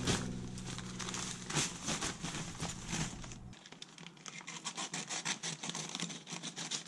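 Paper crinkling and rustling as a paper seed sack is pulled out of a cardboard box, then a utility knife slicing the paper sack open with quick scratchy cuts in the second half.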